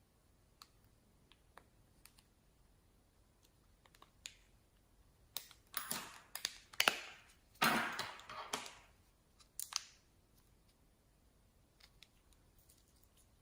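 Slime being pressed and squished by hand, making small clicking pops. There are scattered faint clicks at first, a run of louder crackling squelches from about five to nine seconds in, then faint clicks again.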